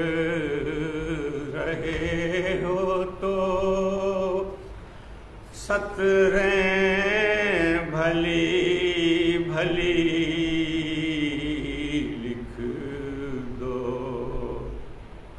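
Unaccompanied male chanting of soz, a Shia mourning lament: slow melodic phrases with long held notes, broken by a short pause about five seconds in.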